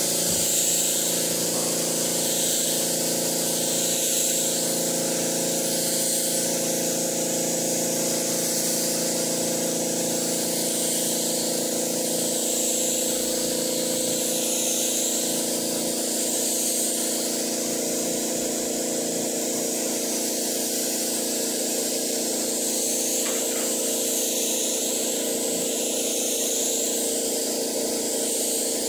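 Compressed-air spray gun with a cup below it hissing steadily as it sprays the final coat of finish, the hiss swelling and easing a little as the gun moves. A steady machine hum runs underneath.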